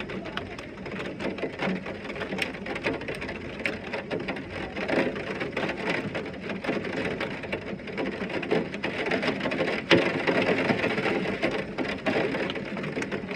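Heavy rain falling steadily, a dense patter of many drop impacts, with one sharper knock about ten seconds in.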